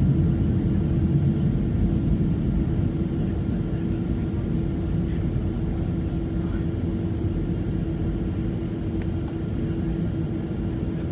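Cabin noise of a Boeing 737-700 on the ground with its CFM56 engines at idle: a steady low rumble with a constant hum, easing slightly in the first few seconds.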